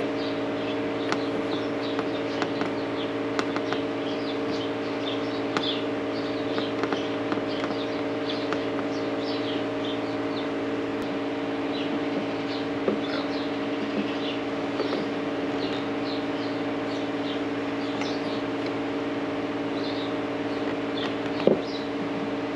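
A steady mechanical hum with small birds chirping irregularly over it, and a few light clicks.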